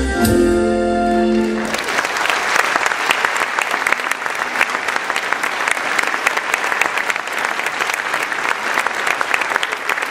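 Folk dance music ending about two seconds in, then an audience applauding steadily.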